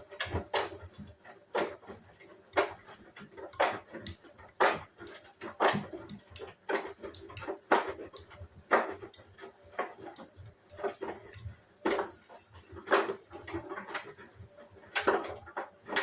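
Hoover All In One 59 washing machine drum turning during a wash, with irregular knocks and clinks about once a second as the load tumbles.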